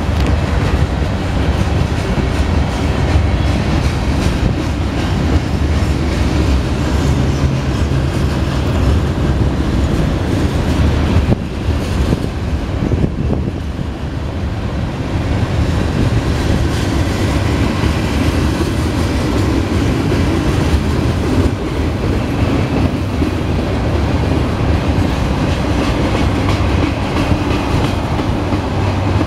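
Norfolk Southern mixed freight train rolling past, its boxcars and tank cars running steadily over the rails. The noise eases off slightly for a few seconds a little under halfway through.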